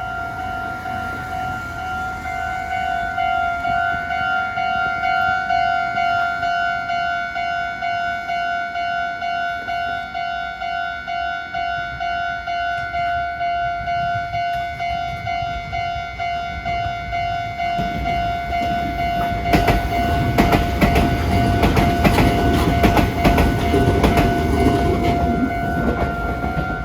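Japanese level-crossing warning bell ringing in steady repeated dings. About 18 seconds in, a Meitetsu Komaki Line electric train comes up and passes over the crossing with rumbling and wheels clattering over rail joints, loudest over the last several seconds, while the bell keeps ringing.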